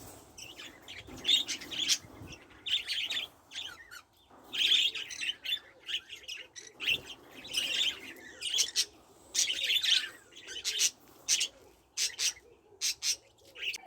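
Small pet parrots in an aviary chirping and calling: a run of short, high calls in clusters with brief pauses between.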